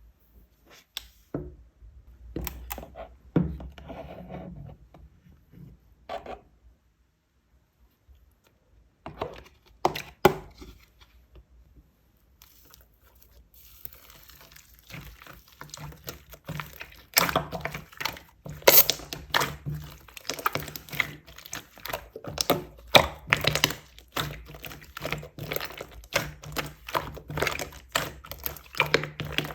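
Slime being handled: a few scattered sticky clicks and pops at first, then, from about halfway, a dense, irregular run of crackling pops as it is pressed and squished.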